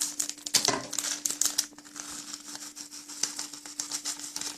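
A spoon clicking and scraping against a bowl while cake batter is mixed, in quick irregular strokes, over a faint steady hum.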